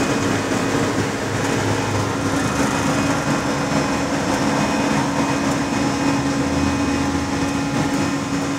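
Airliner cockpit noise just after takeoff as the aircraft climbs away: steady engine and airflow noise with a constant low hum.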